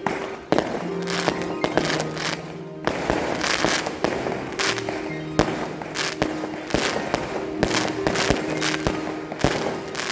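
Fireworks going off in a continuous barrage, sharp bangs several times a second, over background music with long held notes.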